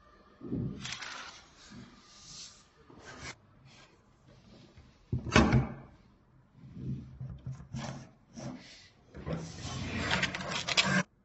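Irregular rubbing and knocking from a media roll's spindle assembly being handled: a metal shaft collar slid onto the spindle and the roll's plastic end cap seated against its metal bracket. The loudest knock comes about five seconds in, and a longer stretch of rubbing comes near the end.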